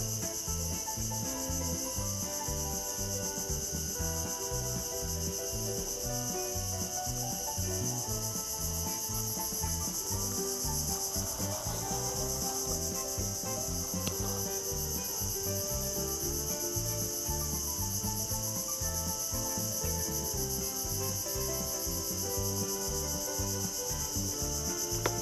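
A steady, shrill insect chorus, two high bands holding level throughout. Beneath it runs a string of low tonal notes that change pitch in steps, like a tune.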